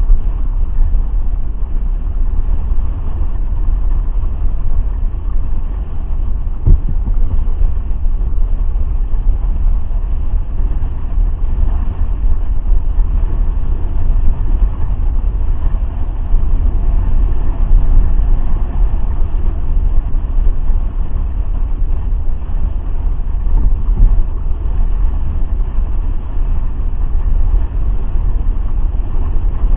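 Steady wind rumble on an action camera's microphone, mixed with the rush of water spraying off a hydrofoil mast as the board foils at speed. One brief knock about seven seconds in.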